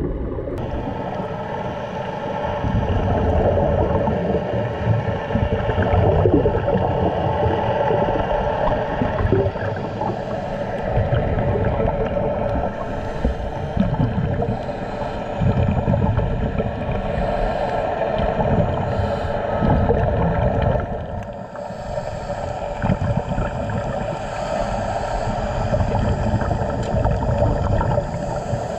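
A boat's engine running steadily, a constant drone over the noise of rushing, gurgling water.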